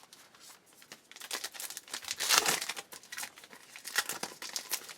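Wrapper of a trading card pack crinkling and tearing as it is ripped open by hand, in a run of rustling bursts that grows louder about two seconds in.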